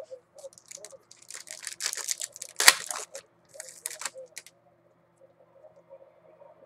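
Foil wrapper of a Topps Finest football card pack crinkling and tearing as it is opened by hand, with one sharp, loud crackle about two and a half seconds in. The rustling stops about four seconds in.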